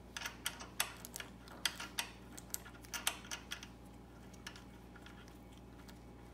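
Small irregular clicks and taps from gloved fingers working the drain screw on a Honda snowblower's carburetor float bowl. The clicks die away after about three and a half seconds.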